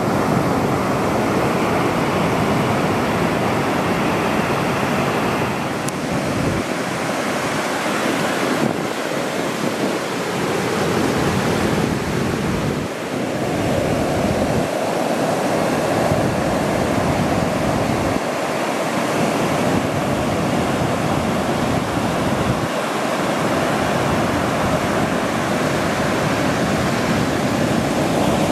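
Ocean surf: waves breaking and washing onto a beach, a continuous rush of water noise.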